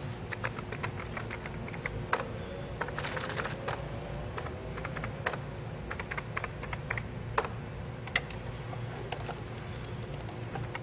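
Typing on a computer keyboard: irregular keystrokes, several a second, over a faint steady hum.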